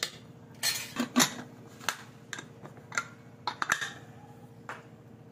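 Metal clinks and clanks: a steel ladle knocking against the side of an aluminium pressure cooker, then the cooker's lid being fitted and closed. The strikes come in short irregular clusters, the loudest a little over a second in.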